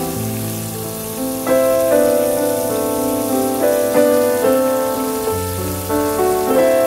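Background music of sustained instrumental notes changing every second or so, over the steady sizzle of battered pieces frying in oil in a wok.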